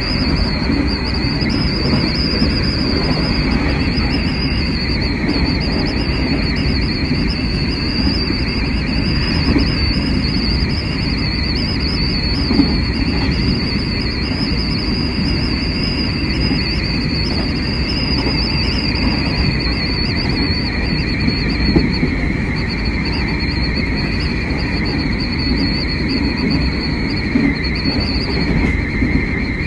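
Hanshin 9300 series electric train running at speed, heard from inside the driver's cab: a steady rumble of wheels on rail with a high whine over it. A second, lower tone drifts down a little in the second half.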